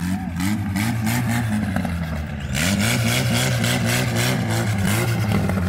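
Off-road vehicle's engine revving up and down again and again under load. A hiss grows louder about two and a half seconds in.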